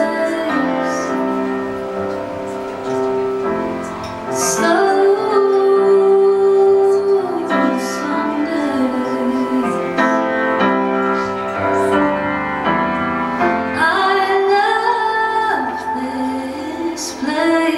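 Live performance of a song: a woman sings long held notes that slide between pitches over sustained instrumental accompaniment.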